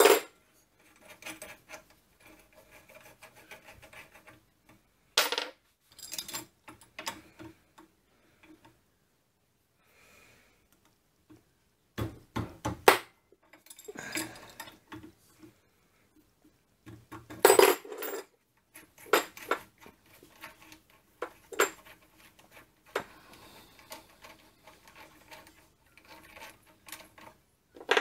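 Steel hand tools and parts clinking and clanking on and around a mini lathe headstock as a C spanner works the spindle lock nuts loose and the nuts are set down. The clinks come irregularly, with a few sharper clanks about halfway through.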